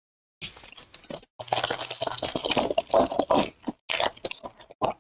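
A foil trading-card pack wrapper being crinkled and torn open by hand, a dense run of crinkling rustles that starts just under half a second in.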